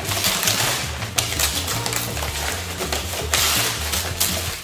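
Wrapping paper rustling and crinkling as a ribbon-tied gift box is unwrapped, loudest a little before the end, over background music with a steady bass line.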